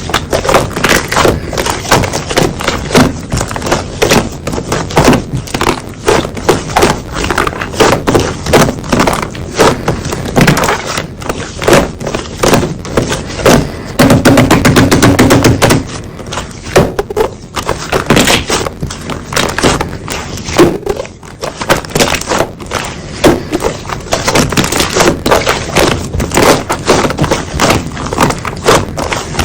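Slime being squished and pressed by hand, making rapid, dense clicking and popping crackles. There is a heavier, longer squelch about fourteen seconds in.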